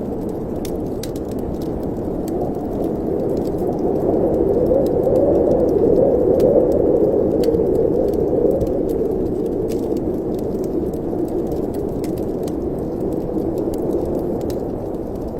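Wind blowing steadily and swelling for a few seconds in the middle, with a fireplace fire crackling in scattered sharp pops throughout.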